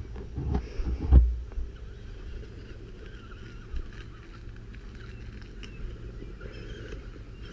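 Electric RC crawler with a spinning weed-trimmer blade running through brush, with a few loud knocks in the first second and a half, then a steadier running sound.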